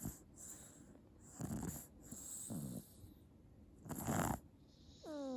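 An eight-month-old baby snoring in sleep: four separate snoring breaths, about a second apart, the loudest about four seconds in.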